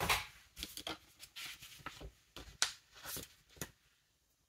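Paper sticker sheets being handled and swapped on a countertop: a run of short rustles and light taps that stops about three and a half seconds in.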